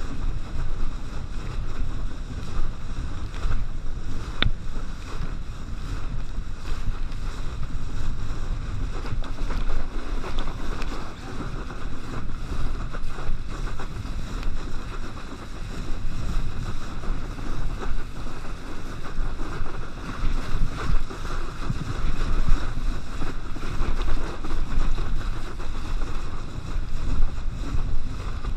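Wind buffeting the microphone over the steady rush and spray of water under a kneeboard being towed at speed through a boat's wake.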